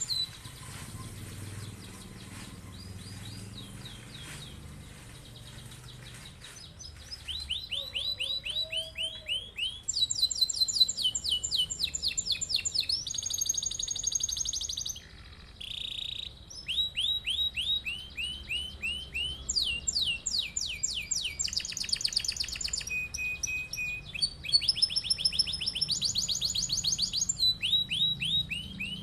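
Domestic canary singing a long rolling song: rapid trills of repeated notes, each phrase jumping to a new pitch. The song is thin and soft for the first several seconds, then fuller and louder from about a quarter of the way in.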